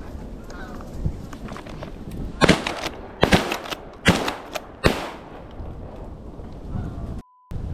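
Four shotgun shots in quick succession, a little under a second apart, starting about two and a half seconds in.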